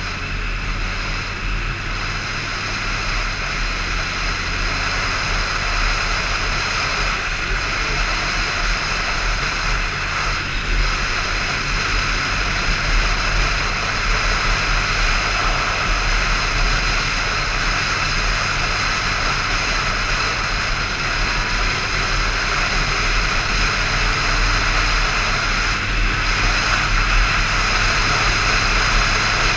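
Motorcycle engine running steadily at cruising speed, heard under heavy wind noise rushing over the handlebar-mounted microphone.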